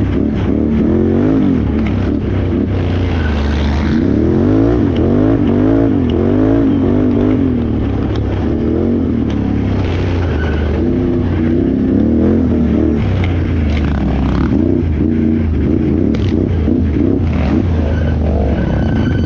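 Can-Am Renegade XXC 1000R ATV's V-twin engine revving up and down over and over under changing throttle, with short knocks and rattles in between.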